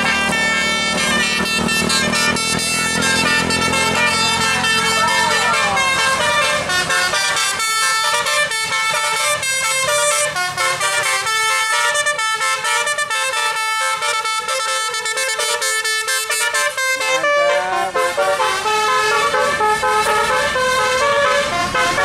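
Bus 'telolet' multi-tone air horns playing a quick tune of stepped notes, with the buses' engines running underneath in the first several seconds.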